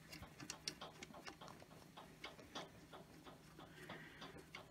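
Faint, irregular small clicks and ticks of fingers handling a metal fitting on a Yong Heng high-pressure air compressor as the burst-disc fitting is screwed back in by hand.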